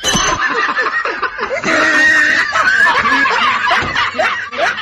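High-pitched laughter, several voices giggling and snickering at once.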